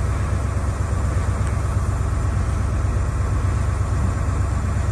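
Steady low rumble with a hiss over it from a train standing at the platform, its locomotive idling.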